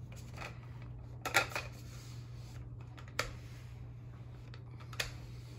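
A rolling pin worked back and forth over salt dough on a silicone pastry mat on a glass table, giving scattered light clicks and knocks; the sharpest come about a second in, at about three seconds and near the end. A steady low hum lies underneath.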